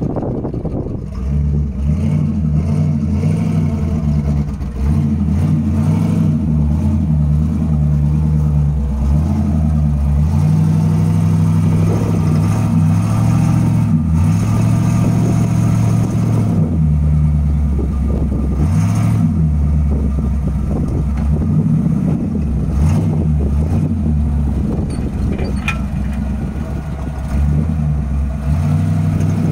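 1979 Jeep CJ7's engine running under changing throttle as it drives through loose dirt, revving up and easing off again and again.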